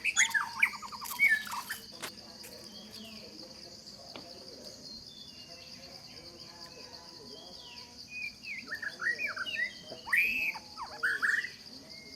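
Steady high-pitched insect drone, like cicadas or crickets, with bursts of rapid bird chirps and sweeping calls in the first two seconds and again near the end.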